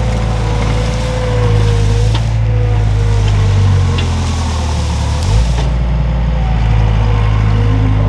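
Compact track loader's diesel engine running steadily under work, with a higher whine over the first couple of seconds; the engine note shifts about five seconds in.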